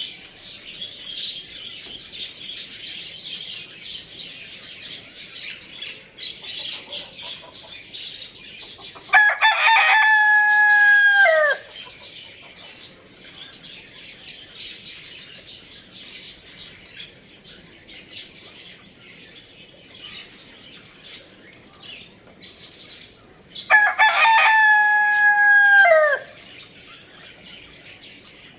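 A rooster crowing twice, each crow lasting about two and a half seconds and ending in a falling note. Between the crows, many short high chirps from other birds run in the background.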